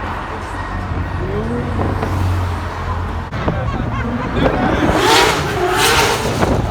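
A car engine running and revving, with the pitch rising briefly about a second in. It grows louder and rougher in the last two seconds.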